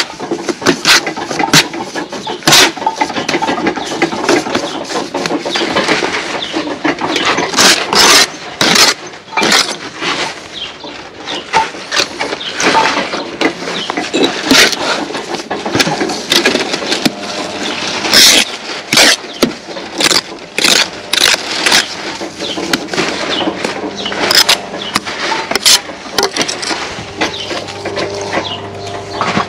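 A steel brick trowel scraping, cutting and knocking sand-and-cement mortar on a spot board, with bricks being handled and tapped. It is a long run of sharp scrapes and knocks over a continuous noisy background.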